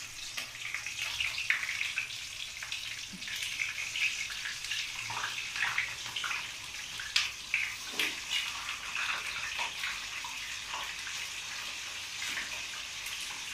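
Eggplants frying in a pan of hot oil: a steady sizzle with scattered crackles and pops.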